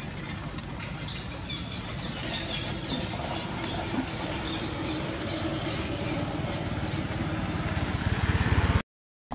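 A motor vehicle's engine running steadily in the background as a low rumble. It grows louder towards the end and then cuts off suddenly.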